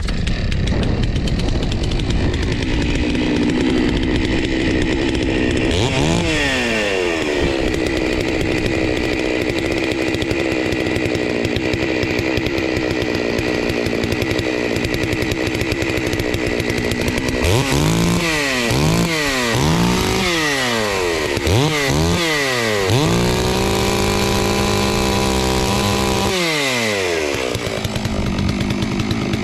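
Chainsaw engine running, dropping in revs about six seconds in. In the second half it is revved up and down several times, held at high revs for a couple of seconds, then let back down.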